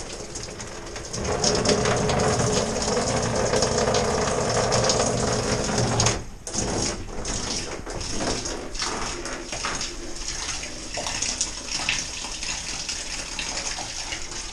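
Water running from a gravity-fed shower head and splashing into the shower basin. The flow comes on about a second in, is strongest for a few seconds, then falls to a thin stream with scattered drips.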